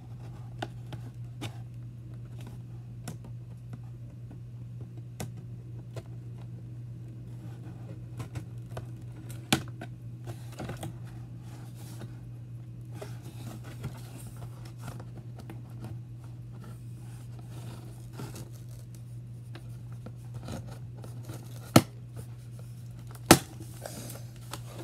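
Scissors snipping at a toy's cardboard-and-plastic packaging, with scattered small clicks, scrapes and crinkling of the box. A few sharper clicks stand out, one about ten seconds in and two near the end.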